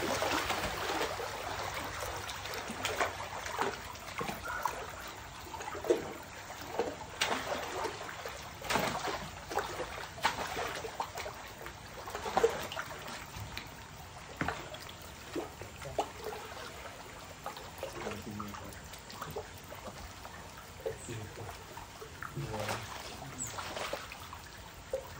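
Water splashing and sloshing as large crocodiles thrash and move through a feeding pool, with repeated short, sharp splashes scattered throughout.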